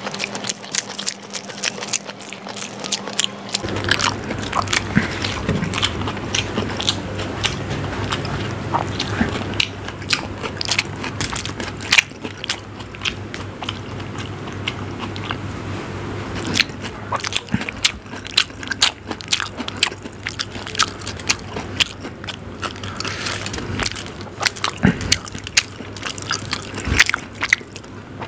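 Close-miked mouth sounds of a man eating Maggi instant noodles by hand, chewing with many wet smacks and clicks.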